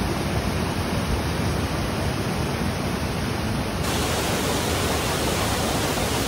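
Silty glacial meltwater stream rushing over rocks and boulders, a steady loud rush of water that turns hissier about four seconds in.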